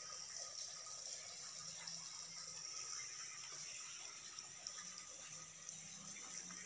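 Faint, steady trickle of water dripping into a shallow pool.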